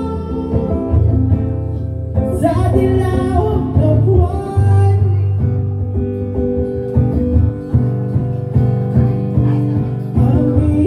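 Acoustic guitar strummed with a voice singing along, a live solo performance.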